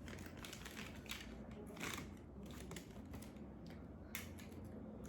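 Faint scattered clicks and light rustling of small items and packaging being handled.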